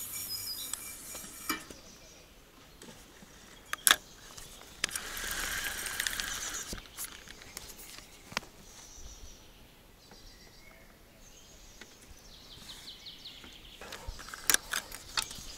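Feeder tackle being handled just after a cast: scattered sharp clicks and knocks, with about two seconds of whirring from the spinning reel winding in line about five seconds in, and a shorter, fainter wind-in later on.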